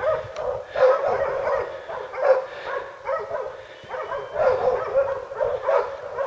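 Hog-hunting dogs barking and baying over and over, several barks a second, as they hold a wild hog at bay.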